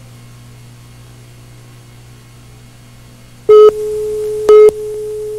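Film-leader countdown beeps: a steady low hum, then about three and a half seconds in, short loud beeps once a second over a quieter steady tone of the same pitch.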